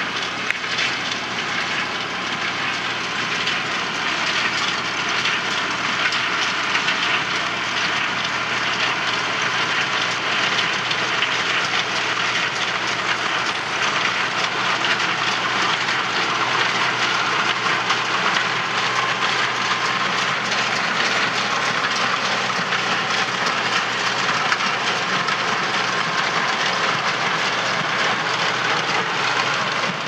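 Renault 80-14 tractor pulling a New Holland 285 small square baler: the tractor's diesel engine running steadily under load while the baler's pickup and plunger clatter on without a break.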